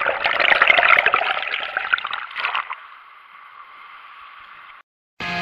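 Churning, bubbling water heard underwater, a dense irregular crackle and gurgle. About halfway through it gives way to a much fainter steady hiss, which cuts off suddenly.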